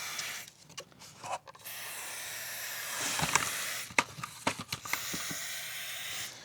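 Aerosol chain cleaner spraying in hissing bursts of a second or two, with short gaps, onto a motorcycle chain. Light clicks and taps come between the later bursts.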